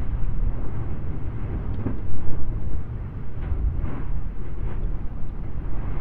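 Lava fountain erupting in a volcanic crater: a continuous deep rumble with irregular bursts of spattering molten lava, the loudest swell about two seconds in.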